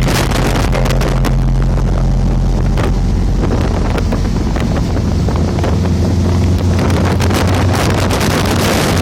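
Volkswagen Beetle's air-cooled flat-four engine running with a steady low hum that drops in pitch about three seconds in, with wind buffeting the microphone.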